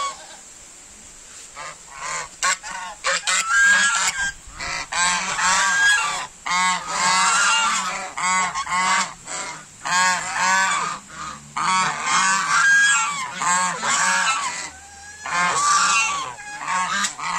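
A flock of white domestic geese honking, with many loud calls overlapping in quick runs that begin about two seconds in.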